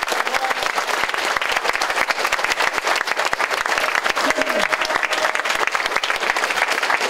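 A group of people applauding: many hands clapping together in a steady, dense patter.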